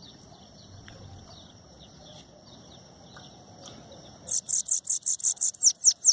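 Bananaquit (sibite) singing: after a few faint chirps, a loud, fast run of high, thin notes, about six a second and some slurring downward, bursts out about four seconds in and lasts a couple of seconds.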